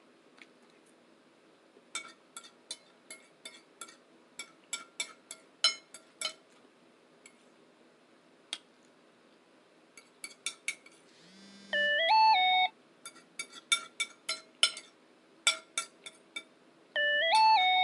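Sharp clicks and clinks of cutlery on dishes during a meal, broken twice by a loud short electronic alert tune of a few stepped notes, about twelve seconds in and again near the end.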